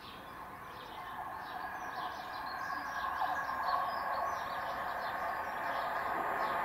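Southern Class 313 electric multiple unit approaching, its running noise on the rails growing steadily louder. Birds chirp and twitter over it.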